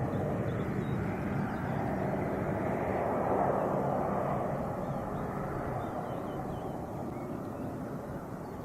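Airbus A400M Atlas turboprop flying past: its four propeller engines make a steady, distinct hum over broad engine noise. The sound grows to its loudest about three and a half seconds in and then fades.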